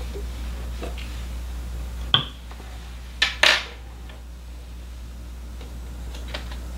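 Sharp metallic clinks as the nickel silver female ferrule is taken off the male ferrule slide: one about two seconds in, then two close together about a second later, the loudest, with a brief ring. A steady low hum runs underneath.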